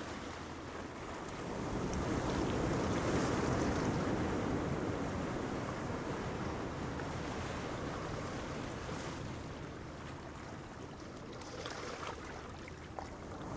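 Sea waves washing in a steady rushing wash that swells about two seconds in and slowly eases off.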